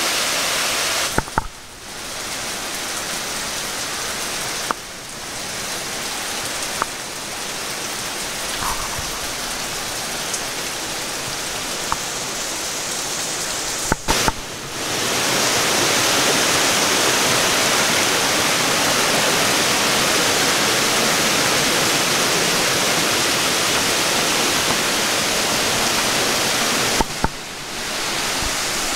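Cascading creek waterfall: a steady rush of falling and tumbling water. It breaks off briefly four times and comes back at a changed level, loudest in the latter half, with a few faint clicks.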